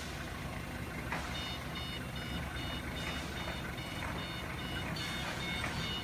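Forklift reversing alarm sounding a steady series of high beeps from about a second in, over the low, steady running of the HELI 2.5-tonne forklift's engine as it backs away with a load of timber.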